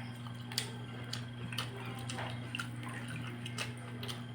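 Soft, scattered clicks and smacks of eating and chewing, a few each second, over a steady low electrical hum.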